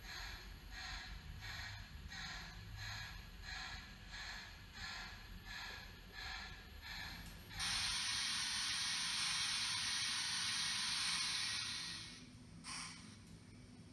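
The sound decoder of an N scale model steam locomotive plays slow, even steam chuffs, about three every two seconds. A little past halfway a loud, steady steam hiss takes over for about four seconds, and then the chuffs resume near the end.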